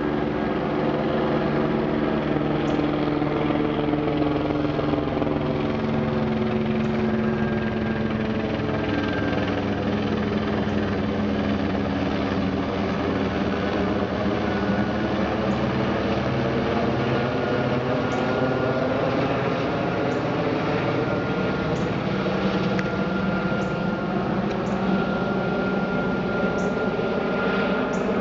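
Airbus H125 single-turbine helicopter circling overhead: a steady rotor beat and turbine whine whose pitch sinks slowly and then climbs back as it moves away and returns.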